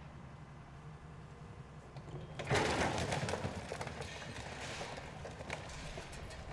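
Demolition excavator tearing into a fire-damaged brick and timber building: under the low, steady run of its diesel engine, a sudden loud crash about two and a half seconds in, followed by a few seconds of cracking and crunching as the debris breaks and falls.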